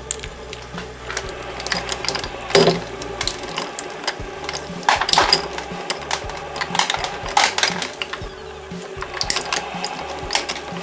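Twin-shaft shredder running with a steady low motor hum while its steel hook cutters crunch hard plastic toy figures. There are irregular sharp cracks and snaps, and the loudest come about two and a half, five and seven and a half seconds in.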